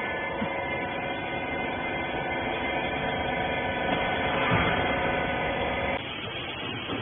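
Rag compression baler's hydraulic pump motor running with a steady hum, cutting off about six seconds in.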